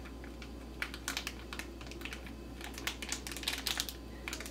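Fingers pressing a water-filled Ziploc bag's zipper seal shut: a quiet run of small, irregular plastic clicks and crinkles, busiest in the middle.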